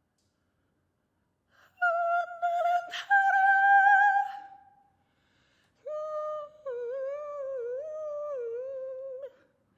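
Solo female voice singing wordless sustained notes: a loud held note that steps slightly higher and fades out, then after a short pause a quieter, lower line that wavers up and down in pitch. A sharp click sounds about three seconds in.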